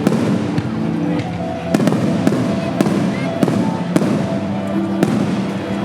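Aerial fireworks bursting in a rapid, uneven series of sharp bangs, about eight in a few seconds, over music with held notes.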